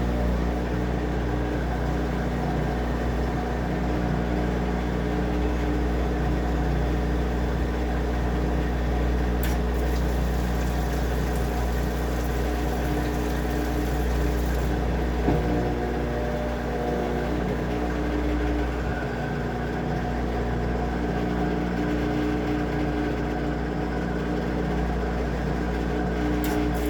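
Washing machine running with a steady motor hum that does not change in level, its pitch shifting slightly about halfway through.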